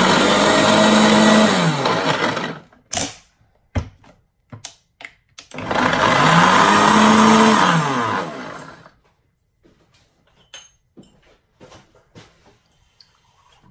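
Countertop blender chopping mint, parsley and carrot pieces in two pulses. The first run is already going and stops about two and a half seconds in. A second run of about three seconds starts about five and a half seconds in, its motor pitch climbing as it spins up and sinking as it winds down. A few light knocks come between the runs.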